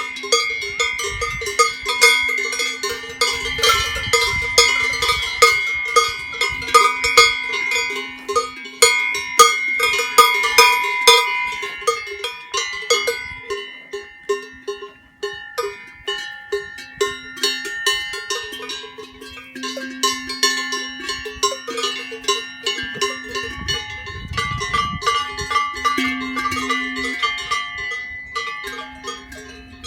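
Many Swiss cowbells clanging irregularly and overlapping, their tones ringing on between strokes. The clanging thins out briefly about halfway through.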